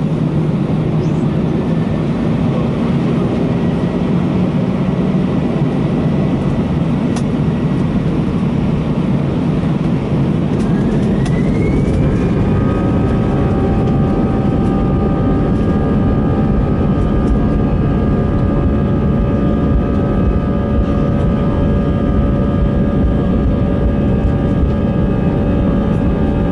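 Airliner's jet engines heard from inside the passenger cabin: a steady rumble, then about ten seconds in a rising whine as the engines spool up to takeoff power. Several steady whining tones then hold over the rumble as the takeoff roll begins.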